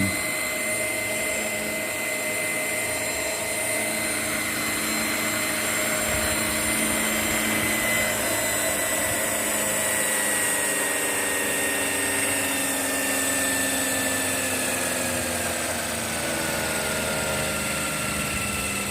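Scale Huey RC helicopter running, a steady motor and rotor whine. In the second half the pitch slowly falls.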